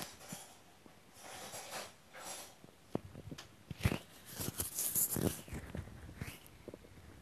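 Hungry stomach growling and gurgling, picked up by an earphone microphone held against a bare belly. It is quiet at first, then from about three seconds in comes a busy run of gurgles and pops, loudest in the middle.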